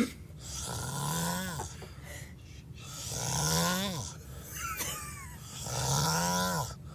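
A drunk man snoring heavily in his sleep: three long snores about two and a half seconds apart, each a noisy inhaled breath with a buzzing tone that rises in pitch and then drops off at the end.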